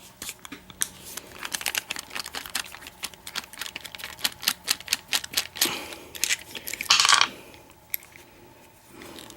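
Rapid small metal clicks and clinks as tools and parts are handled and moved about on a desk, with a louder scrape about seven seconds in.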